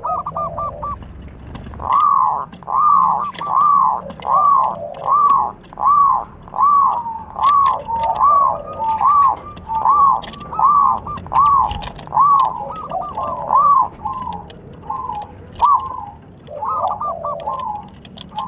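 Zebra dove (local perkutut) cooing: a long run of arched, rising-and-falling coo notes at a little over one a second, turning shorter and more broken near the end.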